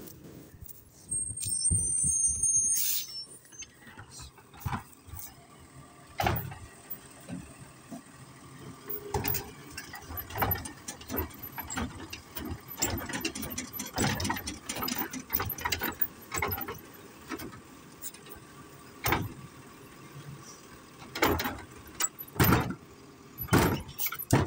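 Automated side-loading garbage truck's lifting arm raising a wheeled cart and emptying it: a high squeal in the first few seconds, then a long series of knocks and bangs as the cart is tipped, shaken and set back down, over the truck's running engine.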